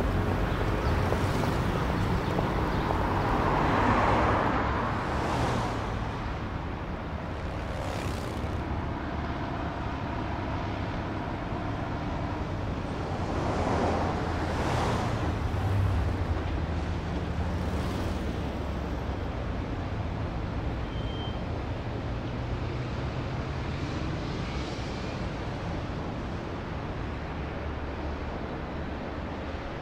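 Street traffic: a steady hum of engines and tyres, with vehicles passing and swelling up about four seconds in and again around the middle.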